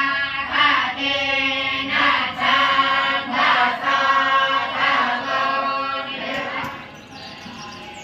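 A group of young students chanting Hindu prayers together in repeated rising and falling phrases. The chant fades away near the end.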